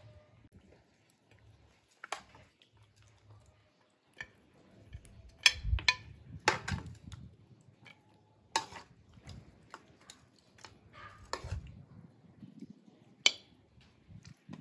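Metal spoon clinking and scraping against an aluminium pot and a porcelain plate as cooked chicken pieces are served out, with separate sharp clinks every second or two.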